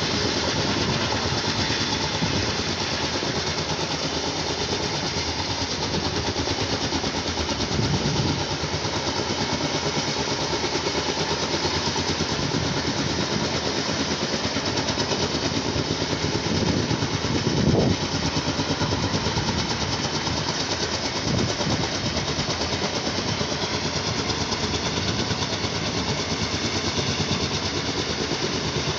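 Steady engine drone with a fast, regular pulse, swelling briefly a few times.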